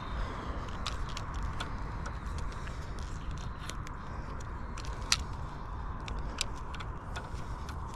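Wind rumbling on the microphone, with scattered small clicks and ticks from hands working a carp fishing reel's bail arm and handle.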